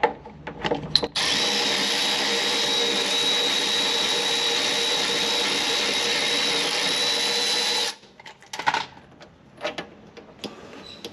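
Power ratchet spinning out a CV axle flange bolt. It runs steadily with a thin high whine for about seven seconds, starting about a second in and cutting off suddenly. A few light metallic clicks from handling the tool and bolt come before and after.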